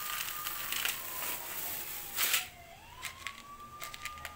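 Dried split lentils pouring from a plastic bag into a plastic bowl: a steady rattling hiss with a louder rush about two seconds in, then a few light clicks as hands move through the grains. A faint tone falls and rises again in the background.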